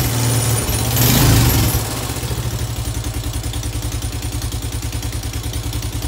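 Honda Foreman 500 ATV's single-cylinder four-stroke engine running, louder for about the first two seconds and then settling into a steady, evenly pulsing idle.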